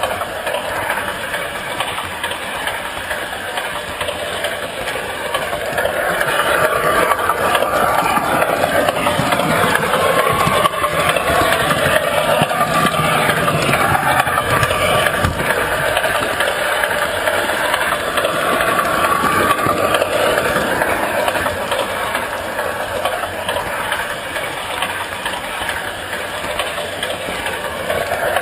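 Model train running along its track: a steady motor whine mixed with wheel and rail rattle, picked up close by a camera riding on the train. It grows louder about six seconds in.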